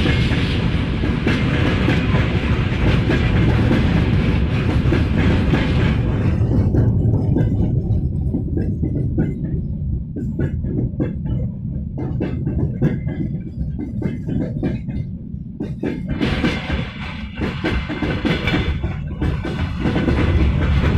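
Freight train wagons rolling past with a steady rumble and wheels clicking over the rail joints. The hiss drops away about six seconds in, leaving the clicks plainer, and the full noise comes back near the end.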